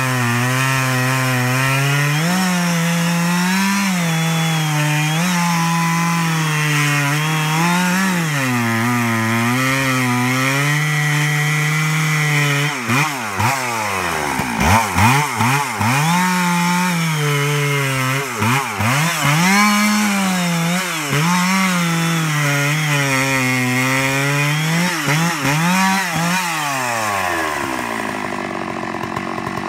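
Two-stroke chainsaw cutting into the trunk of a red oak, the engine pitch dipping under load and recovering over and over, with rapid up-and-down revving partway through. Near the end the engine pitch falls and it drops off toward idle.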